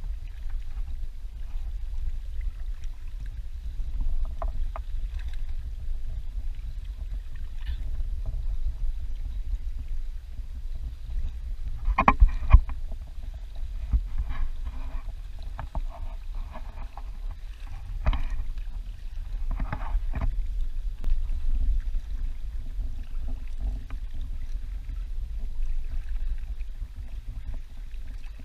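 Inflatable kayak being paddled, heard muffled through a GoPro's waterproof case: a steady dull low rumble, with a few knocks, the loudest about twelve seconds in.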